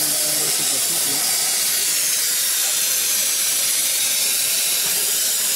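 Multiplaz 3500 water-fed plasma torch hissing steadily as it welds a metal pipe.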